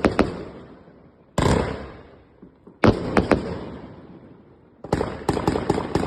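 Crackle ball fireworks going off: sharp cracks, then a sudden burst about a second and a half in and another about three seconds in, each fading into hiss, then a rapid run of crackling from about five seconds in.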